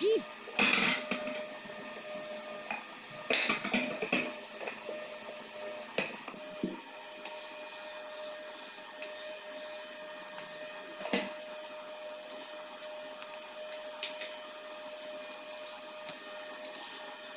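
Scattered knocks and clicks of objects handled on a tabletop (metal cut-out letters, a wooden board, a black sheet and scissors) over a steady hum with a constant tone. The loudest knocks come in the first few seconds and once more about eleven seconds in.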